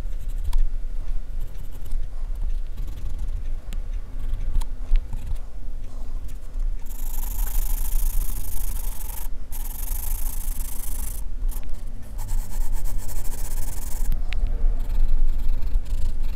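Graphite pencil scratching and rubbing on drawing paper in short sketching strokes, turning into a steadier shading hiss from about seven seconds in to about fourteen, broken twice by brief pauses. A low rumble runs underneath throughout.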